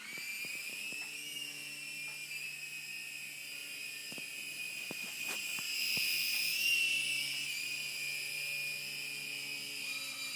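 Small electric RC helicopter's motor and rotor whining at a high pitch during flight. The whine starts suddenly and rises somewhat in pitch and loudness around the middle as the throttle changes, with a few faint clicks.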